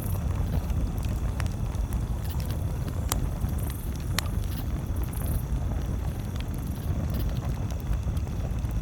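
Campfire crackling, with a few sharp single pops standing out over a steady low rumble.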